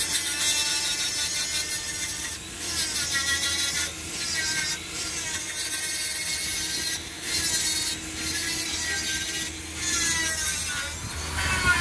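Die grinder with a conical grinding stone grinding down weld metal on a cast iron tractor transmission housing. It makes a high whine that glides up and down in pitch, with a few brief dips in level.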